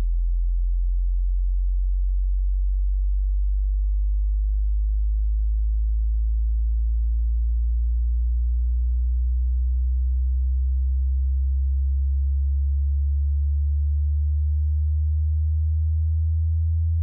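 Hearing-test tone: a single pure sine tone, very deep and steady in loudness, rising slowly in pitch through the bass range as a frequency sweep for checking hearing and matching tinnitus.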